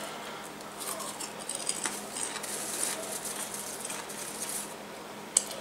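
Popcorn rustling in a plastic bowl as a hand picks through it, with soft irregular rustles and light clicks.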